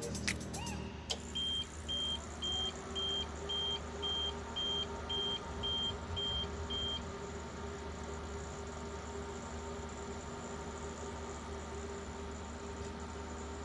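APC UPS's alarm beeper sounding a run of about eleven short, high, identical beeps, about two a second, then stopping after some six seconds. A steady low hum from the running UPS carries on underneath.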